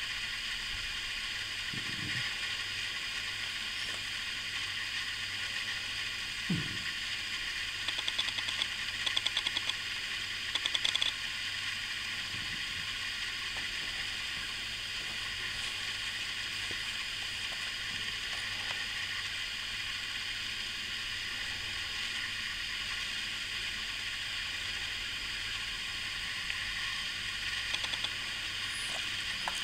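Steady hiss, with two soft low thumps early on and two short bursts of rapid faint ticking about eight and eleven seconds in.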